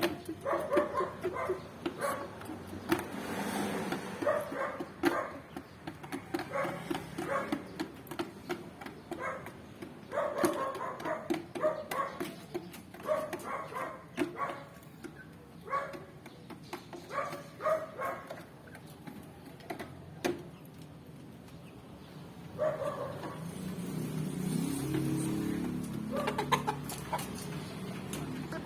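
Young Rhode Island Red chickens, about three months old, making many short clucks and cheeps, with a longer, lower sound near the end.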